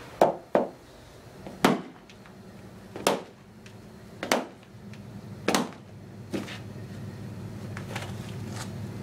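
A wooden war club made from an axe handle smashing into the side of a wooden chair: six hard blows, the first two close together, then roughly one every second and a quarter, with a lighter knock near the end.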